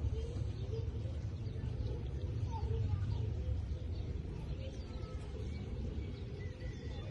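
Steady low rumble of outdoor background noise, with a few faint short chirps.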